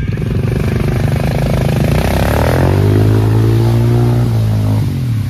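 ATV engine revved hard as the quad churns through a deep mud hole: the revs climb over the first couple of seconds, hold high and steady with the wheels spinning and throwing mud and water, then drop off near the end.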